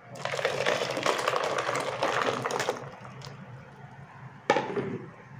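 Falsa juice poured in a stream onto ice cubes in a steel bowl, splashing and gurgling for nearly three seconds, then a single sharp knock about four and a half seconds in.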